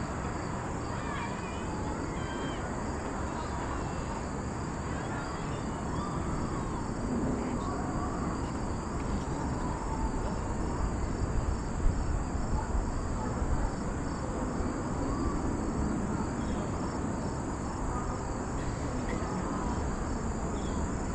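Chorus of insects in the surrounding woods: a steady high trill with a faster pulsing chirp beneath it, over low wind rumble on the microphone.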